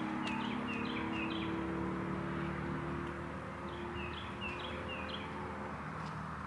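A songbird sings two short phrases of quick repeated slurred whistled notes, a few seconds apart, over a steady low hum and constant outdoor background noise.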